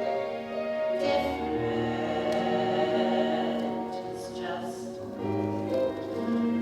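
Stage-musical score with long held chords and voices that sound like a choir, no words.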